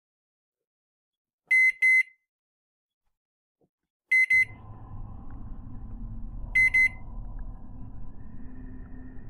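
Electronic scanner beeps from a handheld radar-style detector: three quick double beeps, a pair about every two and a half seconds. About four seconds in, a low, dark ambient drone comes in under them.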